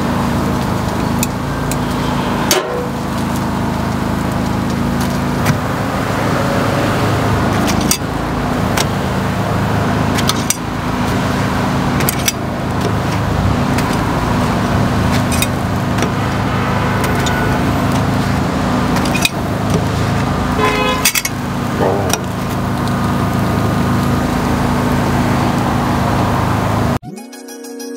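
Steady street traffic noise with a low engine hum, broken by scattered sharp clicks and knocks; music cuts in about a second before the end.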